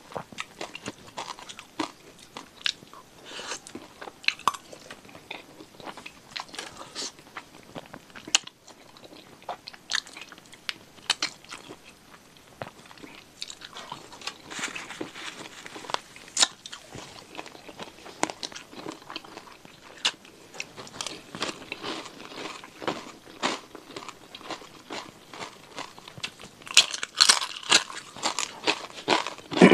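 Close-miked chewing of chicken feet satay: irregular crunches, bites and wet mouth clicks as skin and cartilage are chewed. It gets busier and louder near the end.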